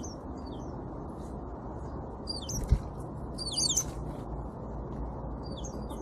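Small songbirds giving short, squiggly twittering calls in several bursts over a steady low background rumble. There is a single sharp thump about halfway through.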